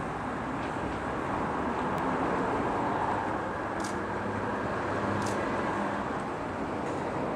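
Odakyu 50000-series VSE Romancecar electric train approaching slowly: a steady low running hum with two short high ticks partway through.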